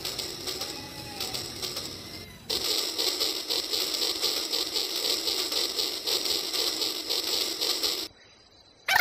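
Battery-powered Rail King toy trains running on plastic track: small motors and gears whirring with fast, rapid clicking. The sound is faint at first, louder after about 2.5 seconds, and cuts off suddenly near the end.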